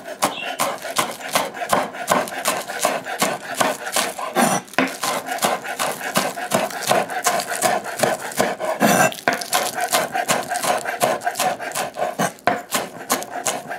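Knife chopping scallions on a wooden cutting board: quick, even strokes, several a second, each blade stroke knocking on the board.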